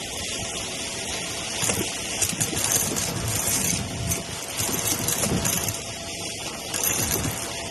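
Shark vacuum cleaner running on carpet, sucking up small hard Dippin Dots beads that crunch and rattle up through the machine over a steady motor hiss. The crackling comes in bursts, three times.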